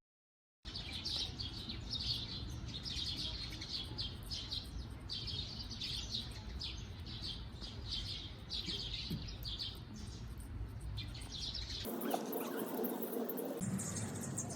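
Small birds chirping in quick, repeated clusters of high notes over a steady low outdoor rumble. About twelve seconds in, the sound cuts abruptly to a different background.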